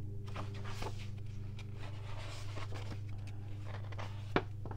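Soft paper rustling and light handling taps as the pages of a large hardback book are turned, with one sharper tick near the end, over a steady low hum.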